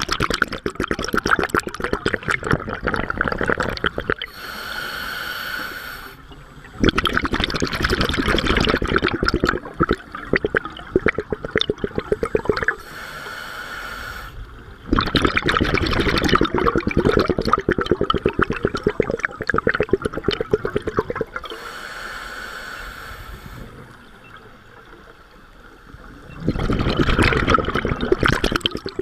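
Scuba diver breathing through a regulator. Long stretches of rushing, crackling exhaust bubbles alternate with three shorter, quieter inhalations, each a steady hiss with a faint whistle-like tone through the regulator.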